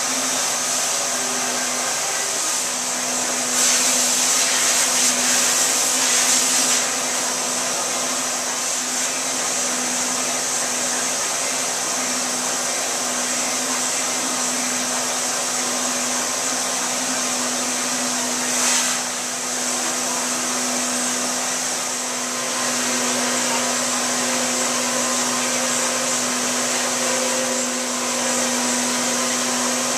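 Steady motor whine of rug-cleaning equipment running, with a constant hum under it. The hiss swells louder for a few seconds near the start and again briefly about two-thirds of the way through.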